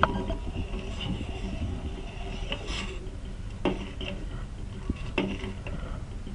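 A spoon knocking and scraping against a pot a few times with sharp clinks, stirring honey into the simmering tulsi-ginger-pepper kashayam.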